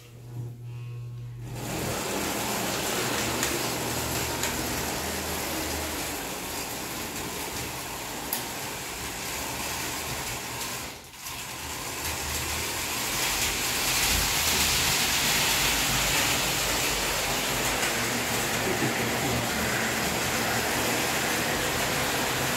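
Vintage tin-plate electric toy trains running on metal track: a steady running noise that sets in over a low hum about a second and a half in, dips briefly about halfway through and is a little louder from about two-thirds of the way in.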